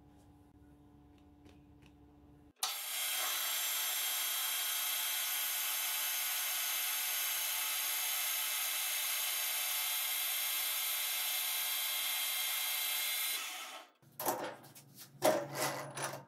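Metal lathe turning a rusty steel tube with a carbide insert, cutting the rust scale away: a steady hiss laced with several high whining tones that starts abruptly a couple of seconds in and stops shortly before the end. Then a few sharp clinks and knocks as the tube is handled in the chuck jaws.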